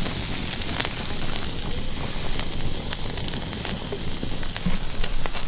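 Steaks on a grill grate and asparagus in a buttered cast-iron skillet sizzling over a crackling wood campfire, with scattered sharp pops. A steady low rumble lies underneath.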